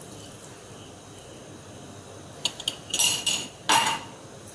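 Kitchenware clinking: a few sharp clinks and knocks of dishes and utensils, starting about two and a half seconds in after a faint steady hiss.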